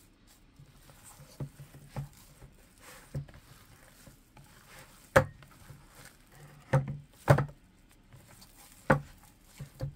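Hands in nitrile gloves kneading and squeezing a wet ground-meat meatloaf mixture in a plastic bowl: irregular squelches and slaps, a few of them sharper.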